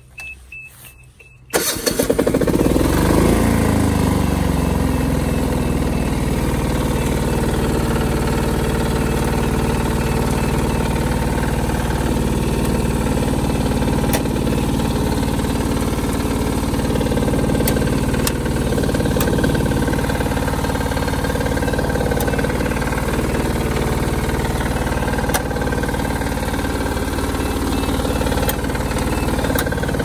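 Engine of a Star JRB0710 self-propelled baler starting about a second and a half in, its speed settling over the next couple of seconds, then running steadily. A faint steady high tone sounds before it catches, and a few light ticks come through the running engine.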